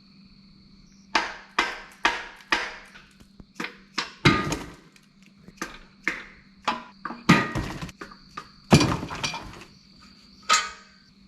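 Hammer blows on metal during a Cummins C160 engine teardown: about a dozen sharp, irregularly spaced strikes, each with a brief ring. They begin about a second in with four quick strikes, about two a second.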